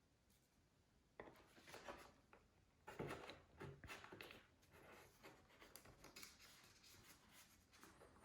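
Faint handling noises: irregular rubbing, scraping and light taps as a servo cable is pushed into a hole in a model jet's airframe, starting about a second in.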